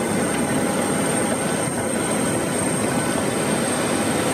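Steady cabin noise inside a Boeing 737-800 powered by CFM56-7B engines: an even rush of engine and air noise with a thin, constant high-pitched tone, unchanging throughout.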